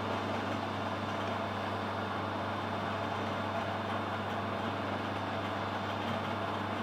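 A motor running steadily, a low, even hum with a rushing noise over it.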